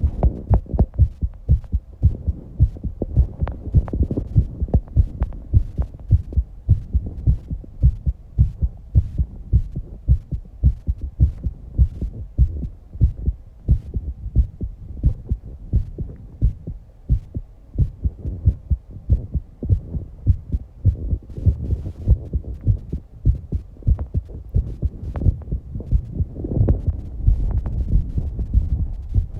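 Fast human heartbeat after exercise: rapid, even low thumps in a steady rhythm, with a swell of heavy breathing near the end.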